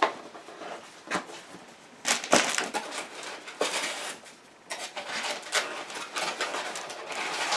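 Packaging being handled and pulled out of a box: rustling and crackling, with a few sharp knocks in the first couple of seconds.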